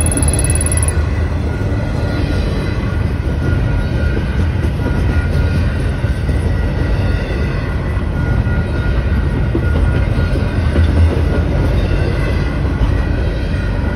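Double-stack intermodal container freight train rolling past at close range, a loud, steady rumble of railcars on the track.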